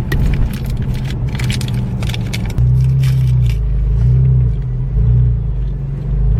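Low, steady rumble of a car's engine and road noise heard inside the cabin, its hum shifting in pitch about two and a half seconds in. Short crackling and rustling noises sound over it during the first couple of seconds.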